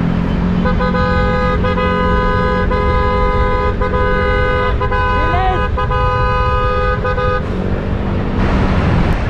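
A vehicle horn held in one long steady blast for about seven seconds, starting just under a second in and cutting off near the end, over steady engine and road noise.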